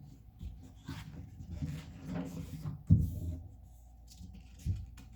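Rustling and soft knocks of a picture book being handled as its pages are turned, with one sharper knock about three seconds in.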